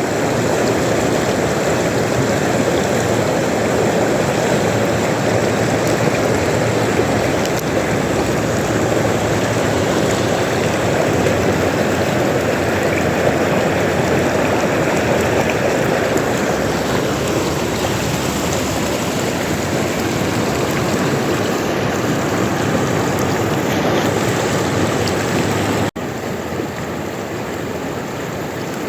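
River water rushing and gurgling in a steady stream. It breaks off for an instant near the end and comes back slightly quieter.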